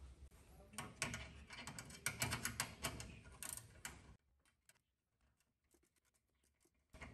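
Ratchet wrench clicking in quick irregular runs as the 10 mm bolt on the fuel filter bracket is tightened. The sound cuts off abruptly about four seconds in, leaving near silence.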